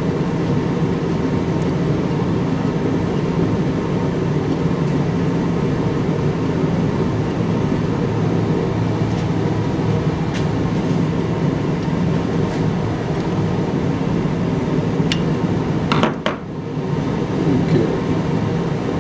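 A steady low mechanical hum, like a fan or air conditioner. A few light clicks of a small screwdriver against the metal carburetor body sound over it, a pair of them about three quarters of the way in.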